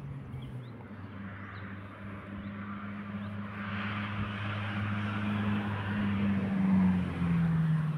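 An engine passing: a low steady hum that grows louder through the middle and drops in pitch about seven seconds in.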